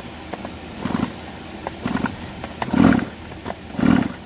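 Recoil starter of a Stihl MS 201 TC chainsaw pulled about four times, a second or so apart, each pull spinning the engine over briefly without it firing; the two pulls near the end are the loudest. The engine is being cranked for a spark check, and no spark shows.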